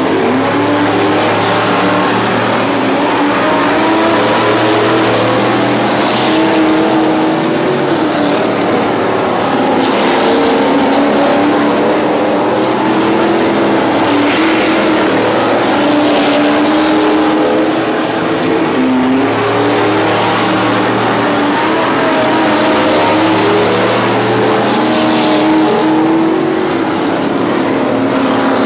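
Several dirt-track modified race cars running at speed on the oval at once, their engines overlapping and rising and falling in pitch as the cars accelerate and ease off.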